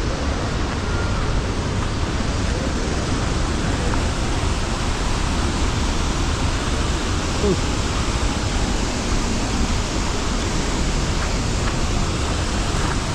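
Tegenungan waterfall on the Tukad Petanu river: a steady, loud rush of falling water.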